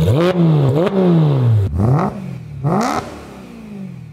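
Porsche 991.1 GT3 RS's naturally aspirated flat-six revving hard, its pitch climbing and falling several times, with quick sharp blips about two and three seconds in, then dying away near the end.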